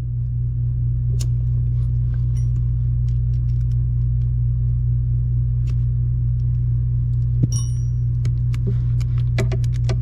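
A steady low hum throughout, with scattered clicks and light clinks of metal hand tools working on the steering rack's mount nuts, and one ringing metallic clink about seven and a half seconds in.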